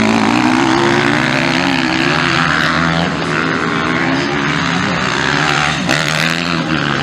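Motocross bike engines revving hard through corners, the pitch rising and falling with the throttle.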